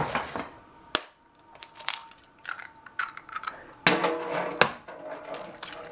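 Eggs being cracked on the rim of a stainless-steel mixing bowl. There is a sharp knock about a second in, then light taps and clicks, and two more knocks around four seconds in.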